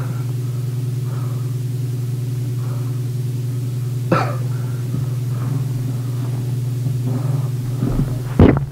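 A steady low hum, with a sharp click about four seconds in and a louder knock just before the end.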